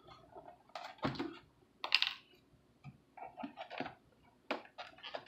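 Scattered light clicks and clatters of fingers handling the plastic deck hatch and body pins of an RC jet boat, several clicks in quick succession about three and four and a half seconds in.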